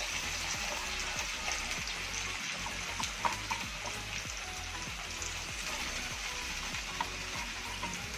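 Cornflour-coated potato strips deep-frying in hot oil: a steady sizzle with a few sharp pops.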